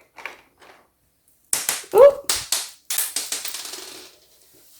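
Miniature plastic toy pencil pot dropped, clattering with a run of quick clicks and knocks about a second and a half in, then rattling to a stop.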